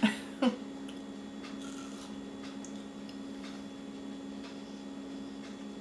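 A steady low hum runs throughout. Two short sharp clicks come in the first half second, followed by faint soft ticks and squishes of fruit being eaten.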